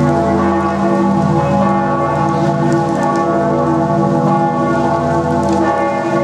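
Bern Minster's church bells ringing together in a continuous full peal, many bell tones overlapping and swelling with no pause: the ringing that welcomes the New Year.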